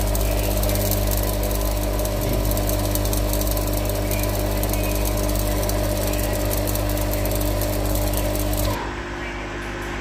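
Midea front-load washing machine motor running with a steady hum and a dense, fine crackling hiss, the sign of the motor sparking. The sound cuts off suddenly near the end.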